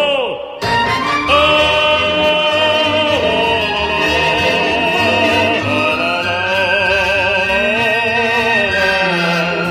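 Background music: a voice singing long, wavering held notes in an operatic style over an accompaniment, with a brief break about half a second in.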